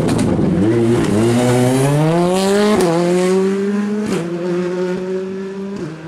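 Rally car engine revving hard under acceleration, its note climbing over the first few seconds, then holding steady with short breaks at gear changes, and growing fainter near the end.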